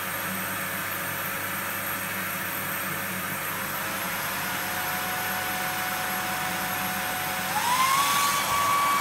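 A vacuum cleaner and a hair dryer running together as a load of about 10 A, a steady motor and fan noise. About four seconds in a thin motor whine comes in, and about seven and a half seconds in it glides up in pitch as the noise gets louder.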